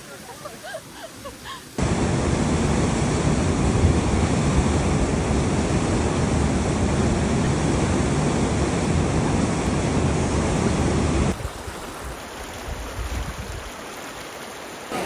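Loud, steady rush of a fast stream over rocks. It comes in abruptly about two seconds in and cuts off abruptly after about nine seconds, leaving a quieter rush of water. A few faint short chirps come before it.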